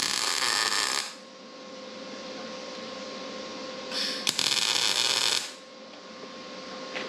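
MIG welder arc sizzling as steel gussets are welded onto frame tubing: two short welds, the first for about a second at the start, the second about four seconds in lasting about a second and a half. A steady hum sounds between them.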